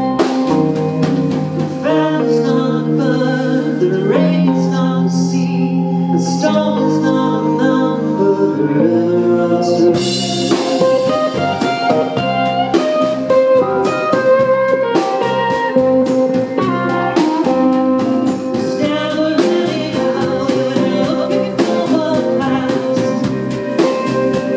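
Live band music: drum kit and guitars playing a song, with the full band getting louder and brighter about ten seconds in.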